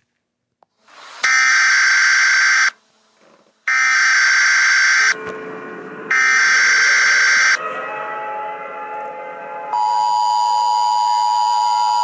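Emergency Alert System header: three loud screeching bursts of data tones, about a second and a half each with short gaps between. About two seconds after the third burst, the steady two-tone EAS attention signal starts and holds.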